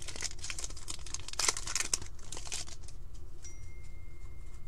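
Plastic wrapper of a hockey card pack crinkling and tearing as it is ripped open by hand, for about the first two and a half seconds, then quieter card handling.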